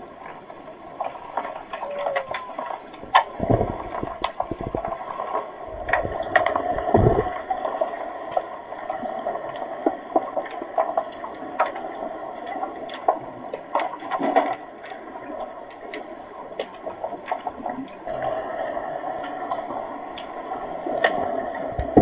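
Underwater hockey play heard from beneath the pool's surface: a constant watery hiss and gurgle, scattered with many sharp clicks and knocks from the game. Deep muffled thumps come about four and seven seconds in.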